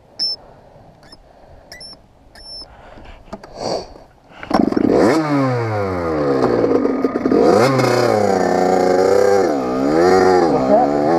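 Kawasaki KX80 two-stroke dirt bike engine catching about four and a half seconds in, after a few faint clicks, then revved, its pitch falling, rising and wavering as the throttle is worked.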